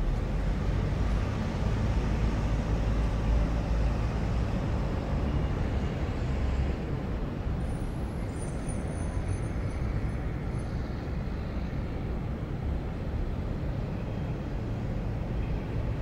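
City street ambience: a steady low rumble of road traffic with vehicles going by. It is a little louder at first and eases slightly about seven seconds in.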